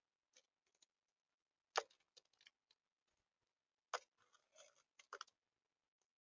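Scattered sharp clicks and taps of birds pecking and landing on a bird feeder, heard over near silence. The two loudest come about two seconds in and four seconds in, with lighter ticks between.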